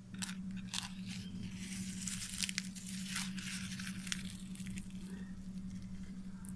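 A fried, sugar-coated plantain empanada being broken open by hand: the crisp pastry crackles and tears in a quick run of crackles for a few seconds, over a steady low hum.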